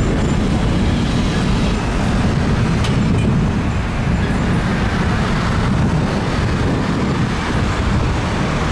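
Jet airliner engines, a loud steady rumble with no rise or fall.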